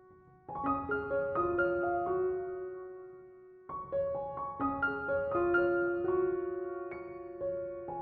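Background music: a gentle piano melody of single struck notes that ring and fade, in two phrases, the second starting a little past the middle.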